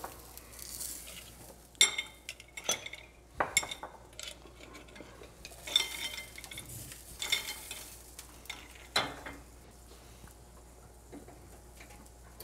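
Dishes and utensils clinking several times, a few sharp ringing knocks spread through, over faint sizzling from a pan on a gas range.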